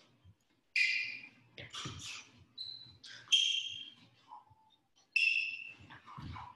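Rubber-soled sneakers squeaking on a hardwood floor during shadow-boxing footwork: a run of short, irregular high squeaks, with a few soft foot thuds.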